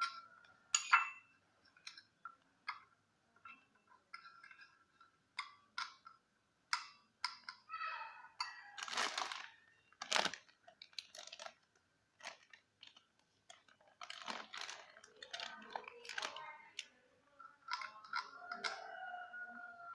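A stirrer mixing Sunlight dish soap and wheat flour in a container into a slime dough: irregular taps and clicks against the container, with a few longer scrapes and squelches.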